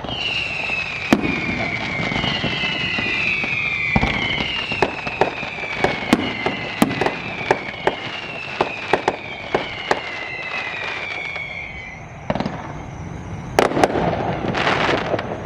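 Fireworks going off: a rapid series of sharp bangs and pops, overlapped by several whistles that each slide downward in pitch for the first three-quarters. Near the end there is a short hissing burst and then a few more bangs.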